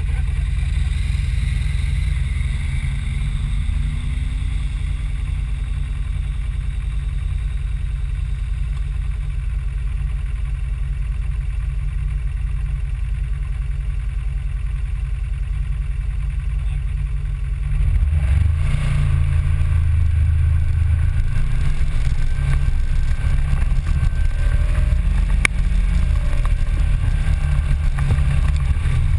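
Off-road vehicle engine idling with a steady low rumble, then revving harder and louder about two-thirds of the way through as the vehicle starts to move.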